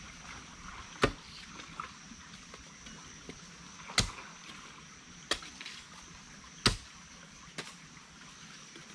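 Wild upland bamboo shoots being snapped off by hand: five sharp cracks, a second or more apart, the loudest about a second in, about four seconds in and near seven seconds.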